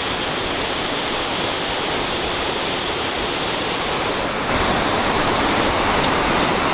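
Steady rush of a waterfall and fast-flowing river. About four and a half seconds in, the sound gets a little louder and deeper.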